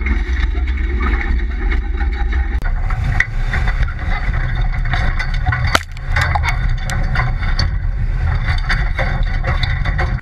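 Pickup truck driving off-road over rough dirt, with its engine running and body and cab rattling. About two and a half seconds in the sound shifts to a camera mounted low on the body by a rear wheel, where the tyres on dirt and many short knocks and clatters from the bumps come through over the engine's rumble.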